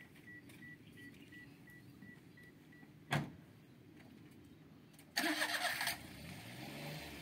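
A small truck's engine: a short loud rattling burst about five seconds in, then the engine running and revving up, its pitch rising. Before that, a faint beep repeating about twice a second and a single sharp knock.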